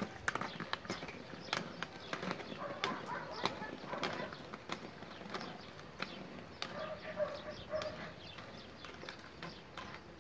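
Inline-skate wheels rolling and clacking over paving tiles, loudest at first and fading as the skater moves away, among scattered short bird chirps.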